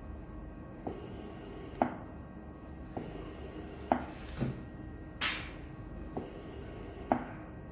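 Oxylog 3000+ transport ventilator clicking about once a second as its valves work through the self-test of the pediatric disposable hose, with one short hiss of gas a little past halfway.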